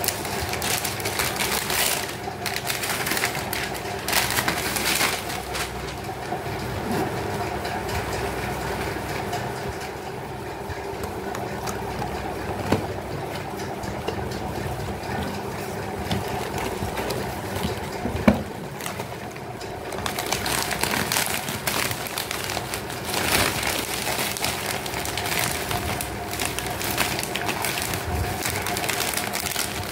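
Glossy gift-wrapping paper and a plastic bag crinkling and rustling in irregular bursts as they are unwrapped and handled by hand, with a couple of sharp clicks, over a steady hum.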